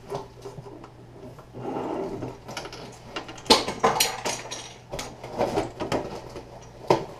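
Irregular sharp clicks and clatter of plastic Lego bricks being pulled apart and set down on a wooden table, with a cluster of the loudest clicks about three and a half to four seconds in.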